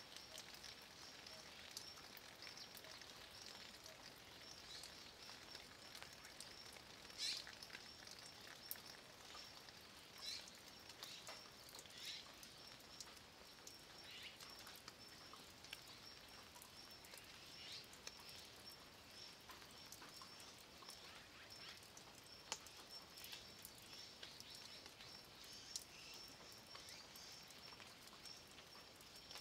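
Faint light rain pattering and dripping on a mossy stone wall, with scattered small drip ticks and a few louder short chirps. A faint high, rapidly pulsing sound runs underneath.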